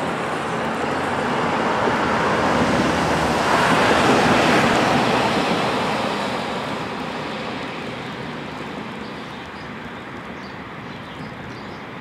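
A vehicle driving past: traffic noise that swells to a peak about four seconds in, then fades away slowly.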